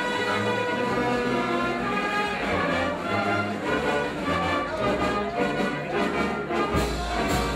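Procession band with brass playing a processional march behind a Holy Week palio float. A crash about seven seconds in is louder than the rest.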